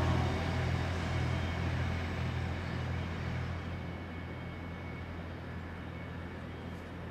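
Rocky Mountaineer passenger train rolling away along the track: a steady low rumble with a faint regular pulsing, fading steadily as the train recedes.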